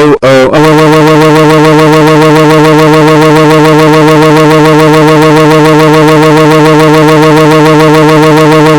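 A text-to-speech cartoon voice, turned up until it distorts, gives two short syllables and then holds one long steady vowel for about eight seconds: a furious shout.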